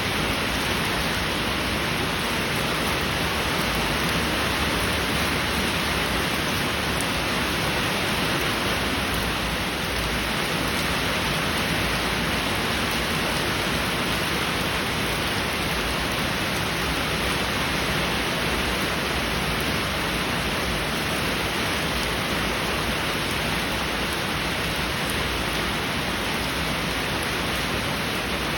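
Heavy rain falling steadily, an even hiss that holds at one level, with no thunder.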